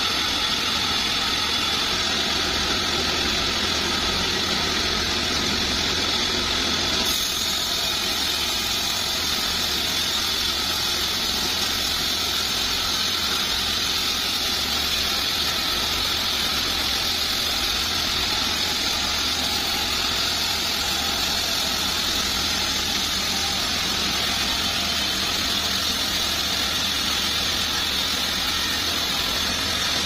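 Homemade band sawmill running steadily, a continuous machine drone with a strong high hiss. About seven seconds in the sound turns brighter and hissier.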